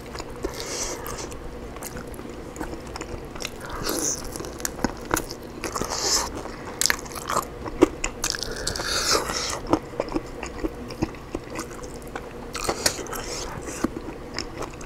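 Close-miked eating of oven-baked rotisserie chicken off the bone by hand: biting and chewing, with frequent sharp crunches and clicks.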